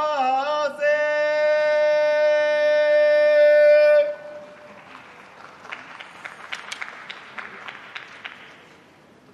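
A sumo yobidashi's call of a wrestler's name, sung as one long held note in a large hall, ending about four seconds in. Then the hall goes quiet, with a dozen or so sharp short snaps.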